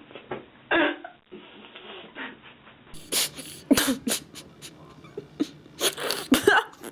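A pet dog making a series of short vocal sounds, mixed with sharp clicks.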